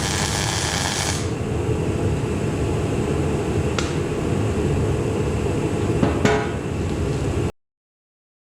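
Shop heater running with a steady low rumble, with a brief hiss in the first second and a few sharp metallic clicks about four and six seconds in; the sound cuts off abruptly about seven and a half seconds in.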